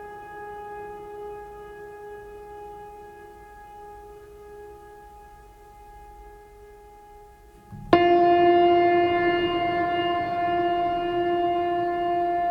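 A steady, horn-like held tone that slowly fades. About eight seconds in, a louder, lower horn-like tone cuts in abruptly and holds steady.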